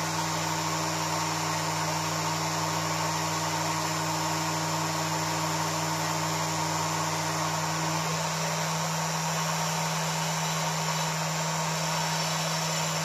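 Small rotary tool running steadily with an abrasive bit grinding and polishing the cast-aluminium edge of a Suzuki FZ50 engine cover, a continuous motor whine. Its note changes slightly about eight seconds in.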